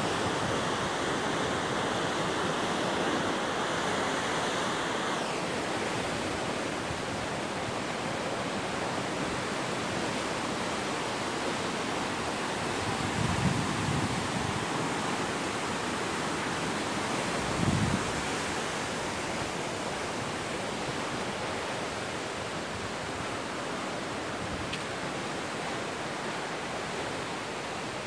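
Sea surf breaking on a rocky shore below the cliff, a steady wash of noise with two dull low thumps about halfway through.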